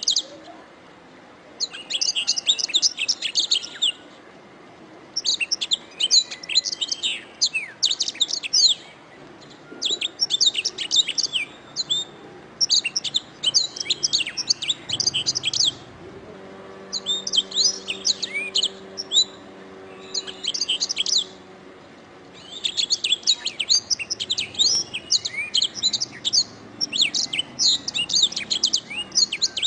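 Domestic canary singing in repeated bursts of rapid, high chirps and trills. Each phrase lasts a second or two, with short pauses between them.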